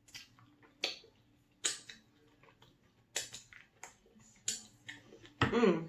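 Close-miked eating sounds: chewing a mouthful of cheesy pizza dip, with about eight sharp, wet mouth smacks and clicks at irregular gaps, then a short hummed vocal sound near the end.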